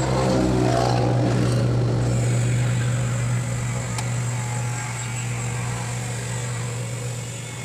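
Low, steady hum of an idling vehicle engine.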